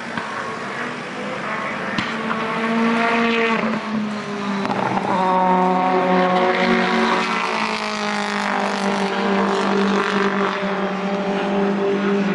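British Touring Car Championship race cars' engines running, more than one at once, with pitch changes as they rev; the sound grows louder and rises in pitch about five seconds in and stays loud.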